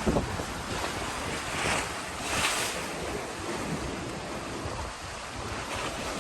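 Sea waves washing, with wind buffeting the microphone in low thumps. The wash swells twice, a little under two seconds in and again around two and a half seconds in.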